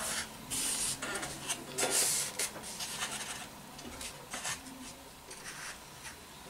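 Masking tape being pulled off the roll and rubbed down over balsa wing sheeting: several short hissing rips in the first couple of seconds, then quieter rubbing and light handling.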